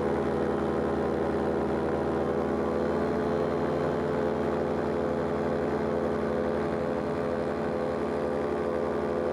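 Paramotor engine and propeller running steadily at cruising power in flight, an even engine drone with no change in pitch.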